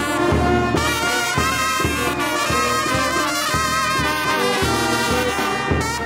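Small brass band of trumpets, a trombone and a low brass horn playing a jarabe from Guerrero: a bright melody over an evenly pulsing bass beat.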